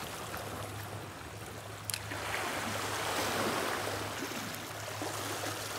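Sea water washing and surging against shore rocks, swelling about two seconds in, with a single sharp click just before the swell and a steady low hum underneath.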